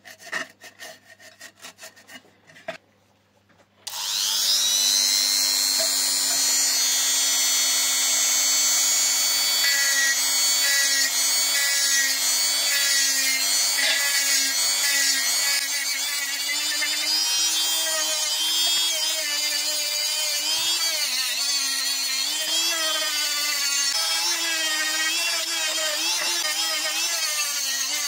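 Quick hand filing or rubbing strokes, then after a short pause a small electric power tool starts up. Its motor whine rises quickly to a steady pitch, and later the pitch wavers up and down as the tool is loaded against the work.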